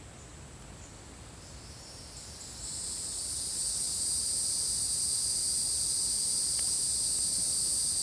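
Insects buzzing in a high, steady chorus that swells in about two and a half seconds in and then holds loud and even.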